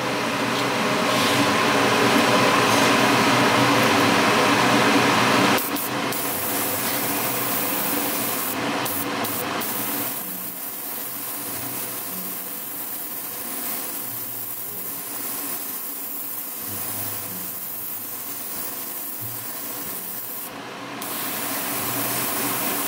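Airbrush hissing steadily as it sprays paint onto a plastic spoon, over the steady hum of a spray booth fan. The hiss is loudest for the first five or so seconds, then drops abruptly.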